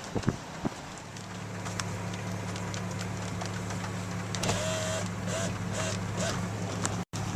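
A steady low machine hum begins about a second in, with scattered light ticks and a few short squeaks near the middle.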